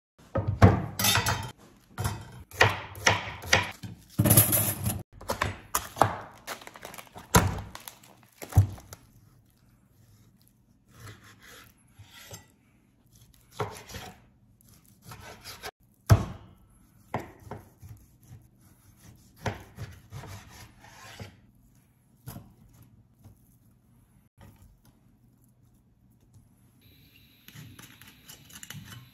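Chef's knife sawing through raw pork on a plastic cutting board: a dense run of rasping strokes and knocks against the board for the first nine seconds or so, then sparser cuts and thunks. A steady hiss comes in near the end.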